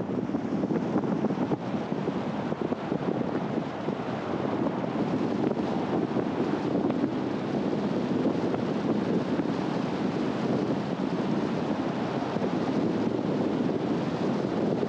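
Steady road and wind noise from a car driving along a mountain road: an even rushing of tyres and air, with no clear engine note or other events.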